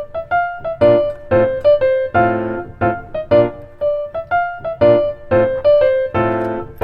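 Background music: piano chords and single notes played in a steady, rhythmic pattern.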